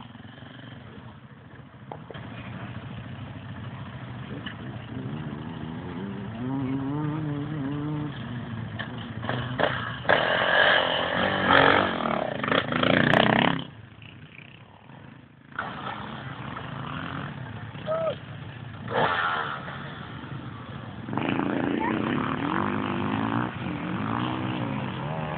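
KTM enduro motorcycles running at low speed and blipping the throttle, engine pitch rising and falling as the riders pick through a tight turn. The engines are loudest about ten to thirteen seconds in, then drop away sharply for a second or two before picking up again.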